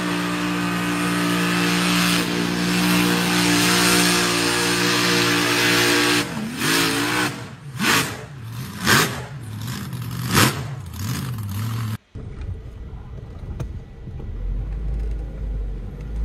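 Pickup truck engine held at high, steady revs while the tyres churn through a mud hole, spraying mud and water; after about six seconds the revs drop and come in several short surges. About twelve seconds in it cuts to a quieter, low rumble.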